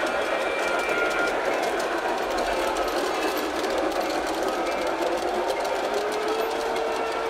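Model train running on layout track: a steady small-motor whir with a fine rapid clicking of wheels on the rails, and a faint steady whine coming in near the end.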